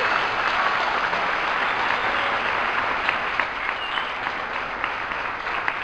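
Audience applauding, the clapping slowly thinning so that single claps stand out near the end.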